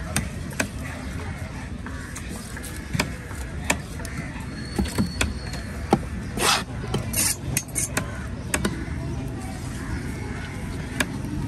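A long knife cutting a tuna loin on a wooden chopping block: irregular sharp knocks as the blade strikes the block, with a short scraping hiss about six and a half seconds in, over a steady low background rumble.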